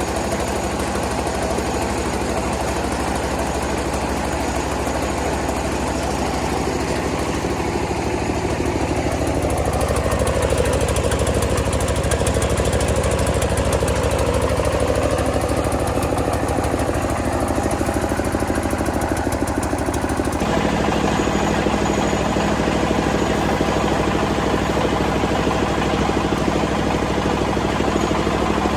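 Rice milling machine running steadily, a loud continuous engine-like mechanical drone. Its tone changes abruptly about two-thirds of the way through.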